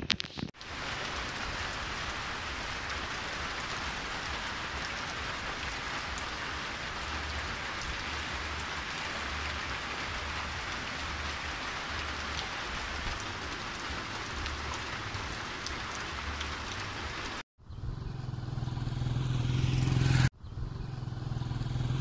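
Steady rain falling, with water running off a roof edge. Near the end the sound cuts off and gives way to a low hum that swells louder twice.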